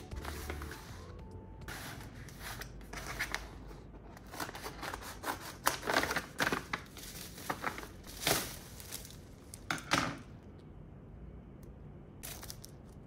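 Kraft paper mailer envelope being opened and handled, in an irregular run of paper rips, rustles and crinkles that die down about ten seconds in, with one short rustle near the end.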